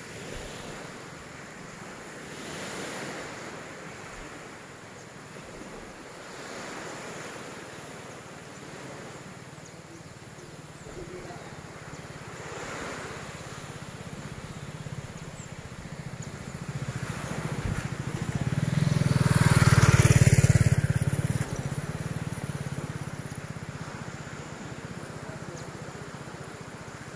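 Sea waves washing ashore in slow swells every few seconds, with wind on the microphone. About three-quarters of the way through comes a much louder rushing swell that builds over a few seconds and then drops off sharply.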